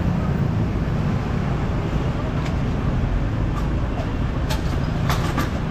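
Steady city street traffic noise: the low rumble of passing cars and motorcycles. Several short sharp clicks come near the end.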